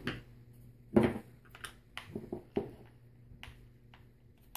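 Scattered clicks and knocks from a plastic trimmer recoil starter and a screwdriver being handled on a table, with one louder knock about a second in.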